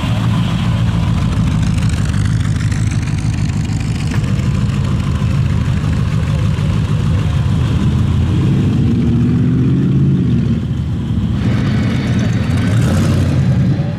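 Car engine running steadily at a low idle close by, with a brief rise and fall in revs around the middle.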